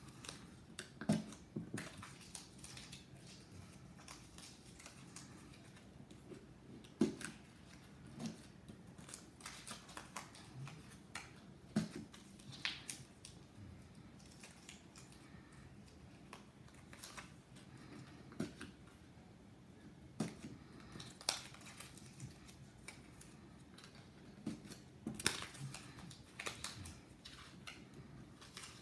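Paper scraps crinkling and rustling as they are pinched and pressed down onto a stack on a ticket spike, with irregular small clicks and taps scattered throughout.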